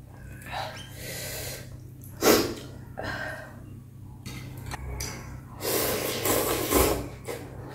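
A person slurping bún bò Huế rice noodles: a short loud slurp about two seconds in, then a longer slurp of about a second near the end, over a steady low hum.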